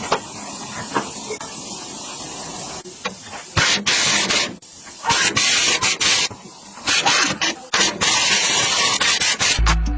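Repeated bursts of loud spraying hiss, each under a second to about a second long, over a fainter steady hiss, with a few sharp clicks in the first three seconds. Music with a beat comes in right at the end.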